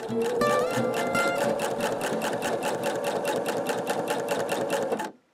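Domestic sewing machine free-motion quilting: a steady motor hum with rapid, even needle strokes, stopping abruptly about five seconds in.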